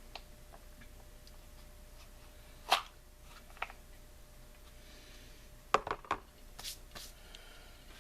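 Scattered handling clicks and knocks from working on the chainsaw's recoil starter and rope by hand. One sharp knock about three seconds in is the loudest, with a small cluster of clicks near the end.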